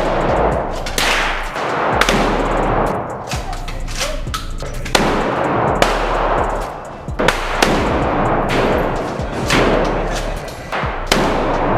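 Several gunshots at uneven intervals, each followed by a long echoing decay, with music underneath.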